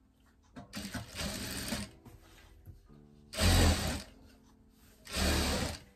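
Industrial straight-stitch sewing machine running in three short bursts, stitching cotton bias binding closed on a fabric apron; the middle burst is the loudest.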